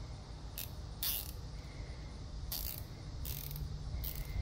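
Nylon zip tie being pulled tight around a bundle of wires, its teeth ratcheting through the locking head in about five short zipping pulls.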